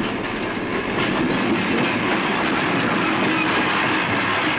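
A freight boxcar rolling along the track, the steady noise of its steel wheels running on the rails.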